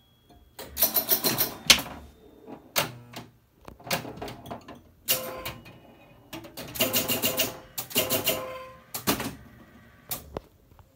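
Bally Night Rider electromechanical pinball machine in play: bursts of rapid mechanical clicking and clacking from its score reels and switches as the score advances, some bursts with a brief ringing tone.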